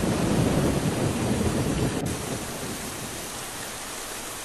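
Rain and thunder sound effect: a low thunder rumble dies away over the first two seconds, leaving the steady hiss of falling rain.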